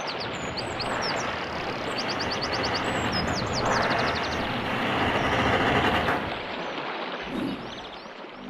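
Outdoor ambience: a steady rushing noise that swells a little partway through and eases near the end, with small birds chirping over it in quick runs of short high calls.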